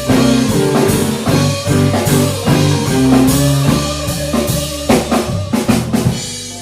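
Live blues band playing a slow blues on electric guitar, bass and drums. About five seconds in, a run of sharp drum hits comes, and then the sound dies down.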